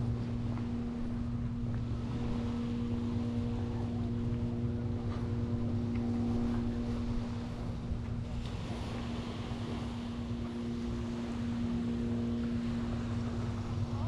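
A motorboat's engine running steadily at an even pitch, with a low rumble beneath it.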